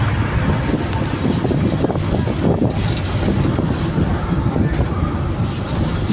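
Steady low rumble of a moving vehicle heard from inside its cabin, with a man's voice over it.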